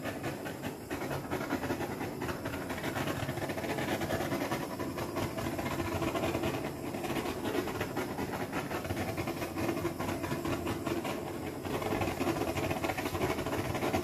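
Handheld butane torch flame burning with a steady hiss while it is passed over wet acrylic pour paint to bring up cells.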